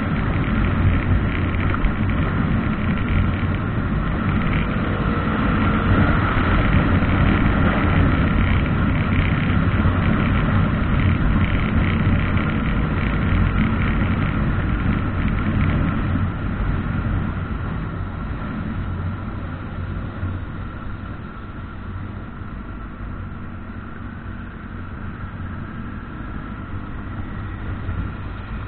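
Motorcycle engine running steadily at road speed, with wind rushing past a camera mounted on the bike. It grows quieter about two-thirds of the way through.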